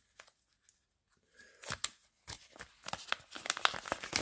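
Thin plastic Whirl-Pak stand-up bag being unrolled and unfolded by hand, crinkling and crackling. It starts faintly about a second in and grows busier toward the end.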